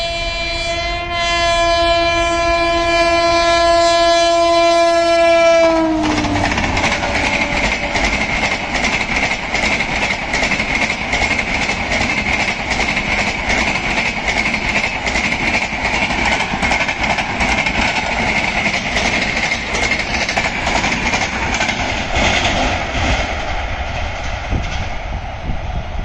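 WAP7 electric locomotive's horn sounding one long, steady blast of several notes for about six seconds, its pitch dropping as it cuts off. Then the passenger coaches run past, their wheels clattering rhythmically over the rail joints over a steady rumble.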